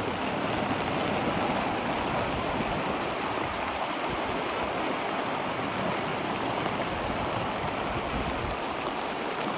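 Floodwater rushing down a creek in flash flood: a steady, even rushing of water.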